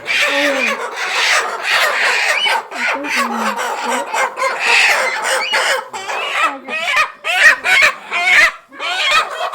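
A flock of young pullets clucking and squawking, many short overlapping calls, from birds being caught and handled for their vaccination injections.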